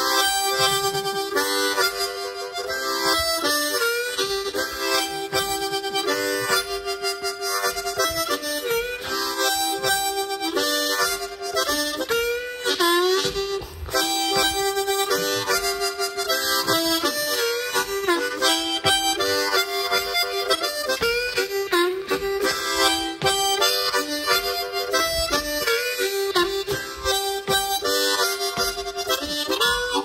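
Hohner harmonica played solo, a blues riff of short notes repeated as a phrase, with some notes bent so that they slide in pitch.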